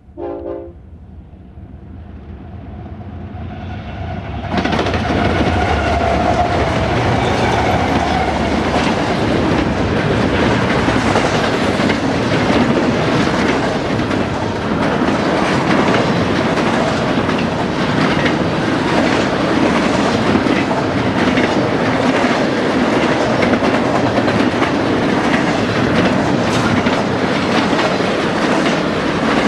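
A short locomotive horn blast, then a BNSF double-stack intermodal freight train passing: the diesel locomotives' rumble builds as they approach, and about four and a half seconds in the lead units pass. The stacked-container well cars follow with a steady, loud clickety-clack of wheels over rail joints.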